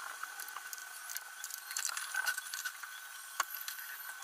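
Thick green masala sauce bubbling and spitting in a non-stick kadai over a low flame, a run of small irregular pops and crackles as it fries down until the oil separates to the surface. A faint steady high tone runs underneath.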